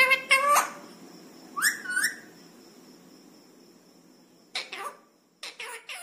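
Rose-ringed parakeet (Indian ringneck) giving short whistled calls in four separate bursts: two at the start, one about two seconds in and one near the end, some rising in pitch.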